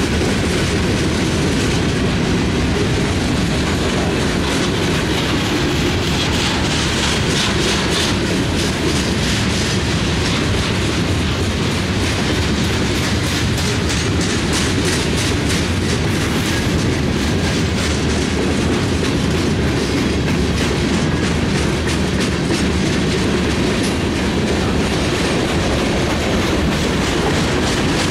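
Freight cars of a passing Norfolk Southern mixed freight train rolling by: steady noise of steel wheels on rail, with rapid clicking as the wheels cross rail joints.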